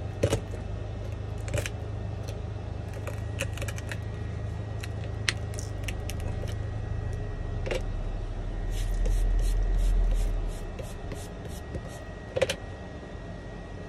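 A flat metal pry blade chipping and scraping laser-loosened back glass off an iPhone 11: irregular sharp clicks and scrapes over a steady low hum. A little after the middle a low rumble swells for about two seconds, with a quick run of ticks.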